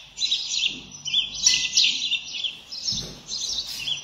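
House sparrows chirping, a rapid run of short chirps in bunches with brief gaps.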